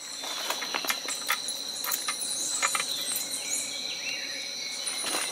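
Forest insects trilling steadily in a high, unbroken tone, with scattered light clicks and rustles of dry leaf litter.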